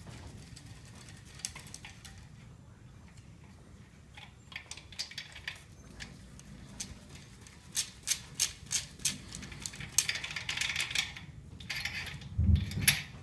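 Socket wrench working the main bearing cap bolts of a 5.7L HEMI engine block, giving sharp metallic clicks. The clicks come scattered at first, then as a run of about three a second past the middle, followed by a denser clatter and a low knock near the end.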